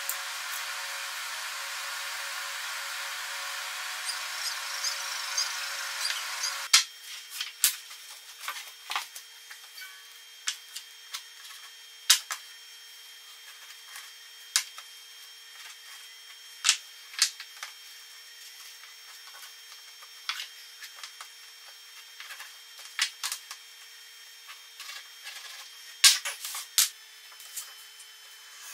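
A steady hiss for the first several seconds, then, after a sudden change, a faint steady hum with scattered sharp clicks and taps from a knife cutting leather on a plastic cutting mat.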